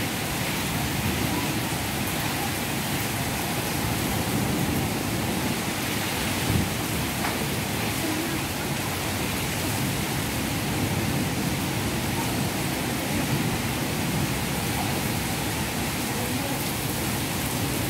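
Heavy rain falling steadily in a thunderstorm, an even hiss with no let-up. One brief low thump about six and a half seconds in.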